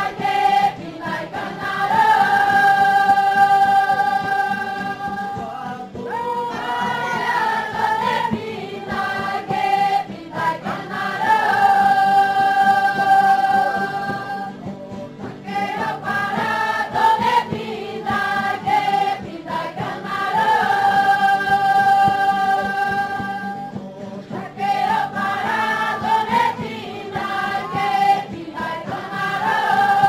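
Music: a choir singing long held notes in phrases that swell and fade every eight or nine seconds.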